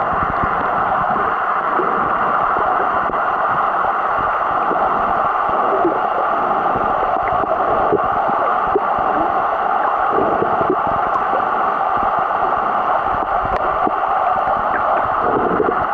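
Steady rushing hiss of seawater heard through an underwater camera's microphone, with scattered small gurgles.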